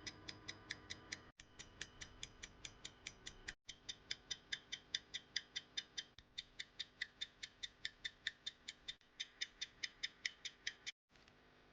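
Roskopf-system pocket watch ticking steadily, about five quick ticks a second, with two brief breaks; the ticking stops suddenly near the end.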